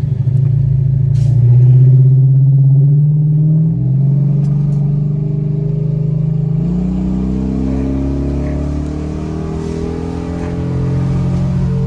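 Dodge Charger's Hemi V8 engine pulling under acceleration, its pitch climbing in stages and loudest about two seconds in. It is running clean with zero misfires on the scan tool after the faulty cylinder 8 harness was replaced.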